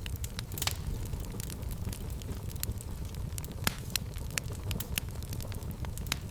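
Fire burning in a fireplace: a steady stream of irregular crackles and sharp pops over a low, steady rumble of flame.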